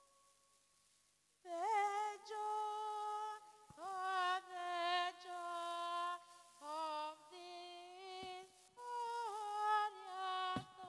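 A woman's solo voice, unaccompanied, singing slow phrases of long held notes with vibrato, starting about a second and a half in after a near-silent pause.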